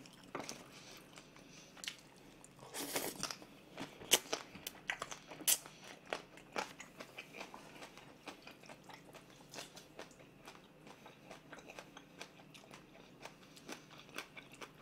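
Close-miked chewing of a mouthful of food: many small, irregular wet mouth clicks with a few sharper ones, and a short noisy burst about three seconds in.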